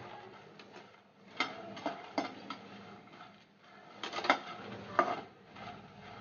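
Metal slotted spatula stirring makhana (fox nuts) in a nonstick kadhai with a little ghee while they roast on low flame: irregular scrapes and light clacks against the pan and the rustle of the puffed seeds, the loudest strokes a little past the middle.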